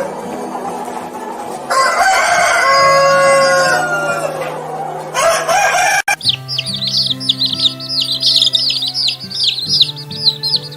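A rooster crowing in long, drawn-out calls. After an abrupt cut about six seconds in, a group of small birds takes over with dense, rapid high chirping. Background music with held low notes plays under both.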